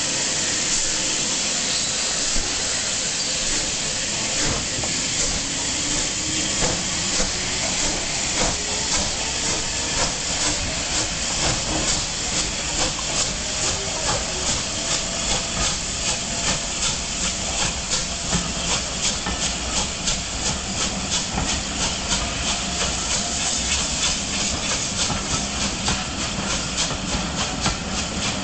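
Two unrebuilt Bulleid light Pacific steam locomotives, West Country class 34007 Wadebridge and Battle of Britain class 34081 92 Squadron, double-heading a train as it pulls away: a steady steam hiss with exhaust beats that come faster as the train gathers speed.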